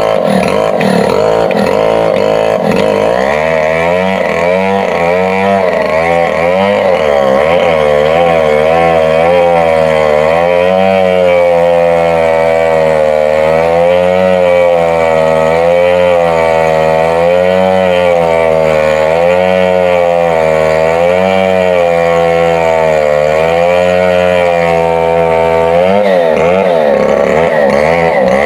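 Stihl MS 070, a large two-stroke chainsaw, running at high revs while cutting through a thick mango trunk, its engine speed dipping and recovering every second or two under load.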